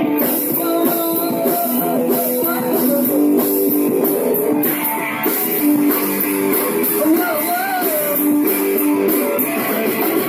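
Guitar-led rock music from a band demo recording. It plays steadily and sounds thin, with little low end.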